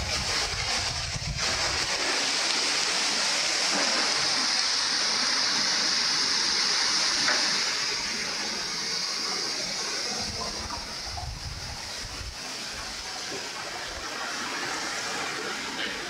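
Strong wind gusting through trees, a loud rushing hiss of tossing leaves that eases off after about eight seconds and rises again near the end. Low rumbles of wind on the microphone come at the start and again partway through.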